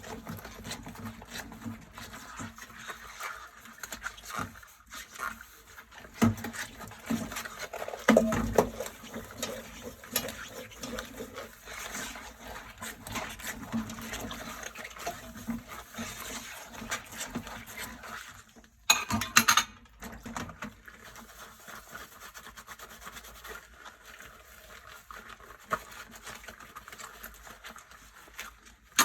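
Dishes being washed by hand at a sink: steady scrubbing and rubbing with scattered clinks and knocks of dishware, and a short loud clatter about nineteen seconds in.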